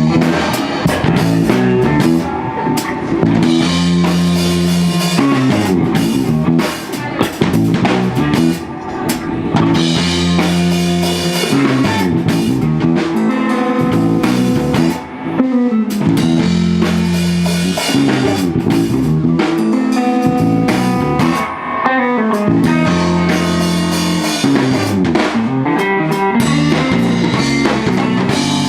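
Live rock band playing an instrumental passage on guitar, bass and drum kit, with a low bass riff that repeats about every six seconds.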